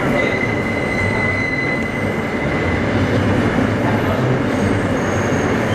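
R160 subway car running, heard from inside the car: a steady rumble and rattle of the wheels on the track. A thin, high, steady squeal sits over it for about the first two seconds, then fades.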